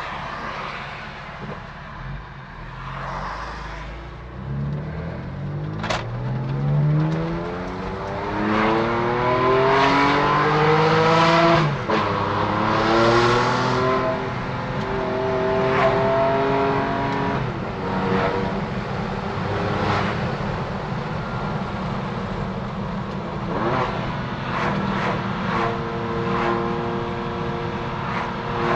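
2015 BMW F80 M3's twin-turbo inline-six, with an M Performance exhaust and secondary cats deleted, accelerating hard through the gears. The engine note climbs in pitch and drops at each upshift, about four times, with sharp cracks at the shifts and a turbo hiss in the harder pulls.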